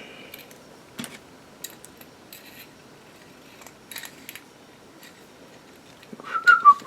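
Scattered light clicks and clinks of Zippo lighters and their metal parts being handled, with a short squeak that falls in pitch near the end.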